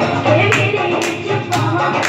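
A song plays with a steady beat: a deep bass note pulses under a sharp hit that lands about twice a second.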